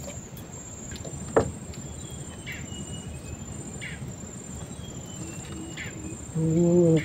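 Steady high-pitched insect drone from the riverside forest, with a few short falling whistles over it. One sharp knock comes about a second and a half in, and a man's short voiced sound near the end.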